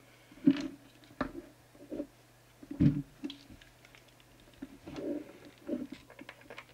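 Scattered knocks and clunks as the metal chassis of an opened CB radio is tilted up and handled on a workbench, over a steady low hum.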